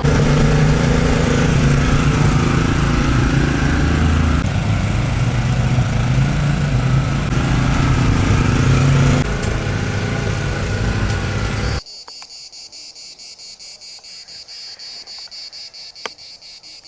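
A rally car's engine running hard at high revs as it passes, with its note shifting a couple of times. About twelve seconds in it cuts off abruptly to insects chirping in a steady pulsing rhythm, with one sharp click near the end.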